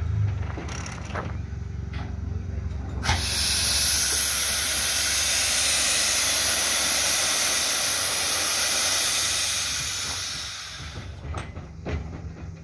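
A standing steam locomotive venting steam: after a low rumble, a loud, steady hiss starts suddenly about three seconds in, holds for about seven seconds, then fades and stops.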